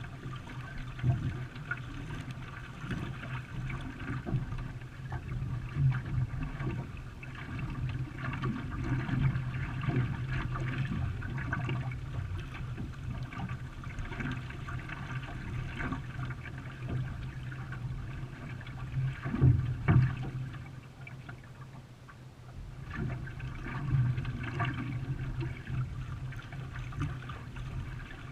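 Water sloshing and splashing around a racing canoe as it is paddled, with a steady low hum underneath.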